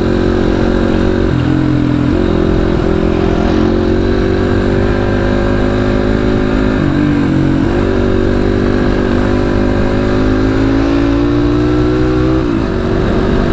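Motorcycle engine running under way, its pitch climbing steadily and dropping back suddenly three times, at about one, seven and twelve and a half seconds in, as the throttle is eased or a gear is changed.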